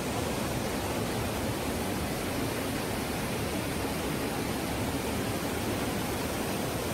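Floodwater rushing through the open gates of a river barrage, a steady whitewater noise that cuts in abruptly and holds even throughout.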